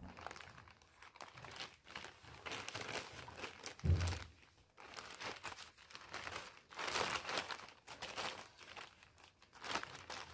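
Plastic shipping bag crinkling faintly as it is handled, in irregular rustles, with one soft low bump about four seconds in.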